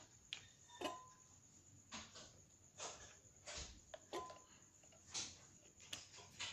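Faint, scattered clicks and taps from handling a glue bottle and bowl while glue is squeezed in, about nine light knocks spread irregularly, a few with a short ring.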